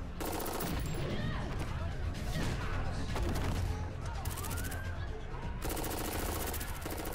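Bursts of rapid automatic gunfire in a TV action-scene soundtrack, the longest burst near the end, over a low music score.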